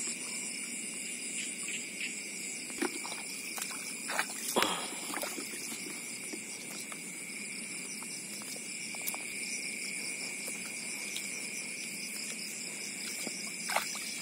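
Night insect chorus: crickets and other insects trilling steadily in several high pitches, with a few short sharp noises, the loudest about four and a half seconds in.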